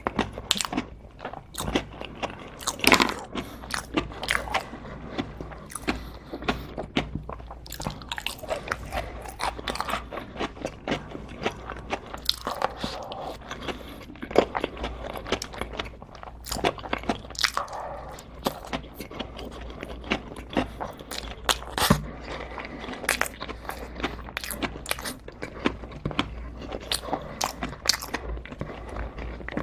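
A person eating close to the microphone, with many irregular crunchy bites and chewing sounds throughout.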